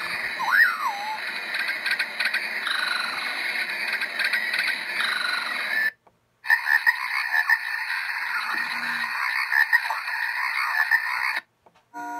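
Built-in nature-sound recordings from a Timex T3075 clock radio, played through its small speaker and switched by button presses. A wildlife loop with a whistled rising-and-falling call cuts off about six seconds in. After a half-second silence comes a dense chorus of chirping and croaking, which stops abruptly near the end as the next sound is selected.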